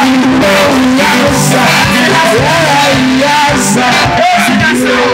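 Live band playing a song, with a singer over guitar and keyboard.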